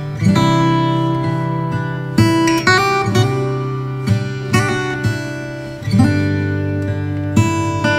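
Background music of strummed acoustic guitar, with chord changes every second or so.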